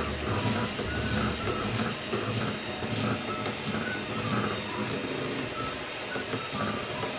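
Electric hand mixer running steadily, its beaters whirring and scraping in a stainless steel bowl as they whip a thick chocolate butter cream, with small squeaks scattered through.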